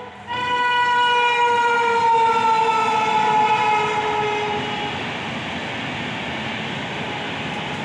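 An express train's horn sounds one long blast, its pitch sinking slowly as the train passes, and dies away about five seconds in. Meanwhile the steady rumble and clatter of the coaches' wheels on the track grows and runs on.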